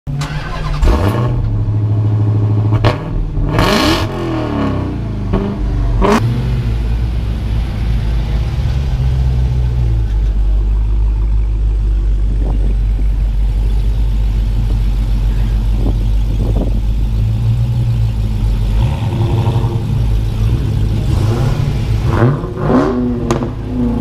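Dodge Challenger SRT V8 engine idling, with the throttle blipped in quick revs about a second in, around four seconds and around six seconds. After a long steady stretch of idle, it is revved again several times near the end.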